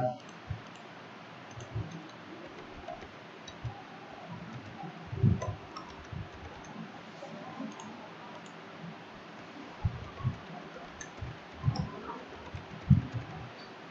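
Faint, irregular clicks and taps of a computer keyboard and mouse while an IP address is entered in the network settings.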